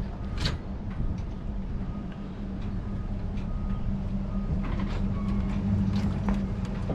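Vehicle engine and road noise heard from inside the cab: a steady low hum and rumble, with scattered clicks and rattles.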